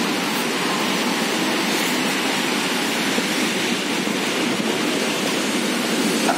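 Steady, even rushing of moving air at a set of glass entrance doors, with no break or change in level.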